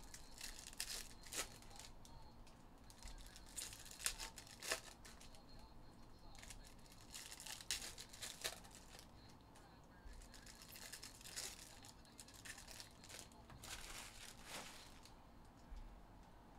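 Faint crinkling and tearing of foil trading-card pack wrappers as Topps Chrome Jumbo packs are ripped open, in short bursts every two to three seconds.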